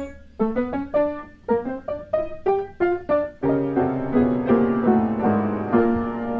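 Background piano music: a run of short, quickly fading notes that gives way to fuller, held chords about three and a half seconds in.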